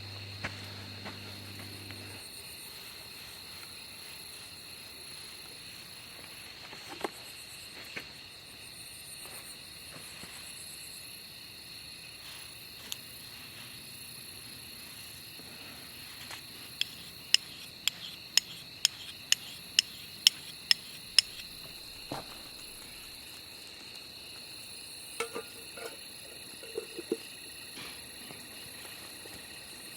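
A steady, high-pitched night insect chorus. Partway through comes a quick run of about ten sharp clicks, roughly two a second, the loudest sounds, with a few scattered knocks elsewhere.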